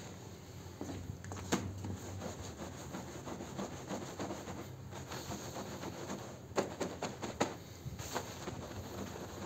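Push broom scrubbing a wet, soapy rug on a tile floor: bristles swishing back and forth through the foam, with a few sharp clicks, one about a second and a half in and several in a cluster near the end.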